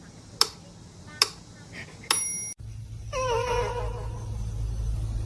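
Two sharp clicks and a ringing ping, then, after an abrupt cut, a cat's drawn-out meow that falls in pitch and then holds, over a low steady hum.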